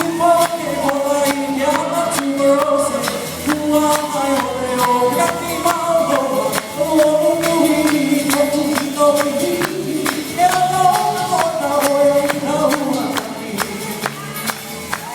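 Live Hawaiian hula song: a man sings the melody over a steady beat of 'uli'uli, feathered gourd rattles, shaken in time.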